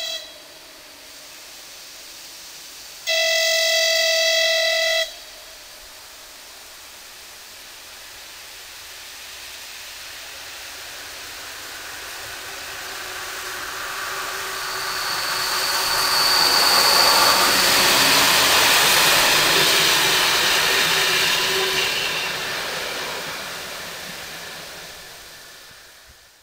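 ČD class 854 diesel-hydraulic locomotive and its push-pull train: the end of one horn blast at the very start, a second horn blast of about two seconds a few seconds in, then the train's running noise swelling as it approaches and passes, loudest about two-thirds of the way through, and fading away.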